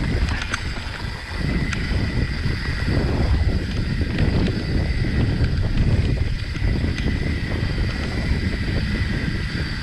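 Wind buffeting the microphone of a mountain biker's camera while riding, a heavy steady rumble, with scattered small clicks and rattles from the bike on the trail.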